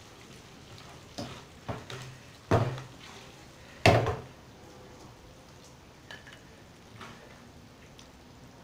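Serving spoon knocking and scraping against a frying pan and a glass bowl as casserole is dished out. A few sharp knocks come in the first four seconds, the loudest about four seconds in, followed by fainter clinks.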